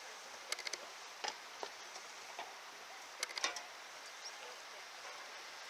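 Steady rushing of a stream, with a few sharp clicks and knocks about half a second in, again just after a second, and in a short cluster about three and a half seconds in.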